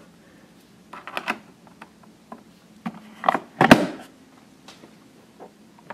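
Scattered plastic clicks and knocks from loading an espresso T-disc into a Tassimo Brewbot coffee maker, a few light ones about a second in and a sharper cluster around three and a half seconds in.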